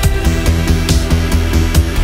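Background music with a fast, steady drum beat and deep bass.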